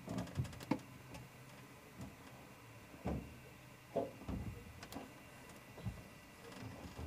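A rapid run of light clicks in the first second, then scattered dull knocks and thumps, the strongest about four seconds in.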